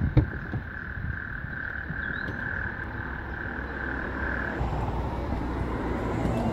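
A steady, high trilling tone that stops about four and a half seconds in, with two sharp knocks right at the start. Then comes the low scuffing of someone getting out of a car, and a high-heeled pump sets down on gravel near the end.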